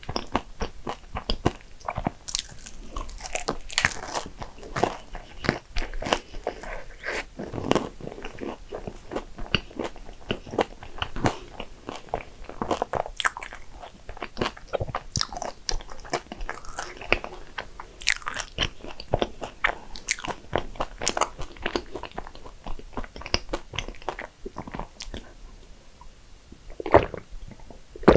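A person biting and chewing a flaky Danish pastry, with many small irregular crunches of the layered crust, and drinking from a glass of milk midway. A single louder sharp sound comes near the end.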